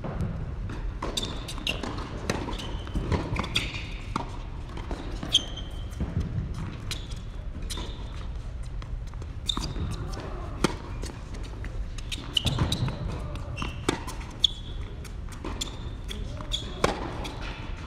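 Tennis rally on an indoor hard court: sharp racket strikes and ball bounces at irregular intervals, with short high squeaks from shoes on the court, echoing in a large hall.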